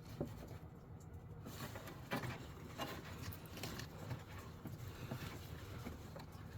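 Hands-on work noise: irregular small clicks and knocks of hose and fittings being handled and fitted, over a low steady hum.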